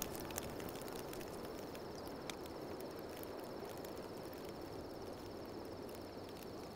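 Quiet night ambience: crickets chirring steadily on one high pulsing note over a low hiss, with a few faint clicks.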